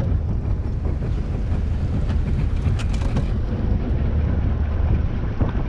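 Motorboat engine running steadily at slow manoeuvring speed, a low hum, with wind buffeting the microphone.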